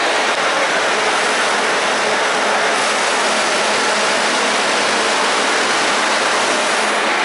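Steam locomotive hissing steadily and loudly as it vents steam.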